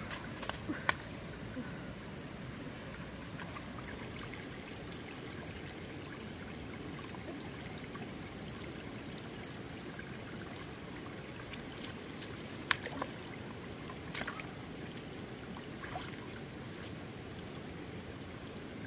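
Water trickling and running steadily, with a few sharp clicks: one about a second in and two more around two-thirds through.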